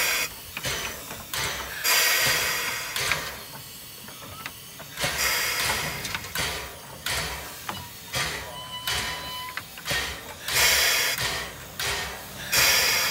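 Geared steam locomotive No. 6 moving slowly, its steam exhaust going in loud, uneven chuffs every second or two, with steam hissing in between.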